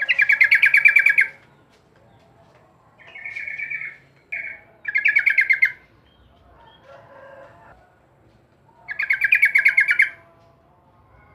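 Yellow-vented bulbul (trucukan) singing: short, rapid chattering phrases of quick repeated notes, each about a second long. Three loud phrases come a few seconds apart, with shorter, softer ones in between.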